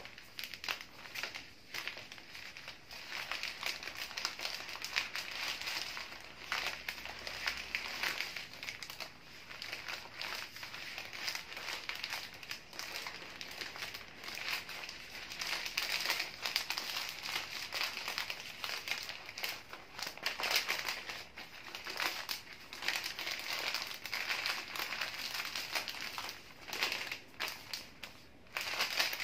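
Sheets of patterned flower-wrapping paper crinkling and rustling without a break as hands fold and gather them around a bouquet, full of small crackles.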